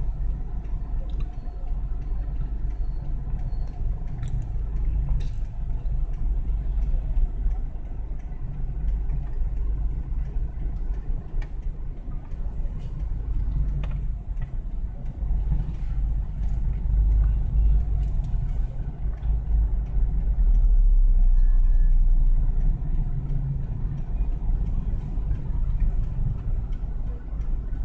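Low rumble of city street traffic, mostly motorbikes with cars and buses passing, heard from inside a stopped car's cabin. About three-quarters of the way through, a steadier, louder low hum holds for a couple of seconds.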